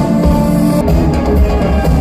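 Live band playing an instrumental passage with guitar and a steady beat, before the vocals come in.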